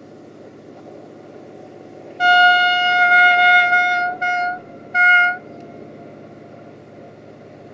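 Horn of an approaching EGM621 diesel locomotive: one long single-note blast of about two seconds, then two short blasts, over the steady low rumble of its diesel engine.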